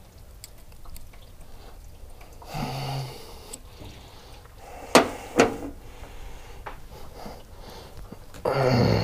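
A heater hose being worked off its fitting with hand tools: two sharp clicks of a tool about half a second apart near the middle. Short grunts of effort come before them and again near the end, as the stuck hose is twisted off.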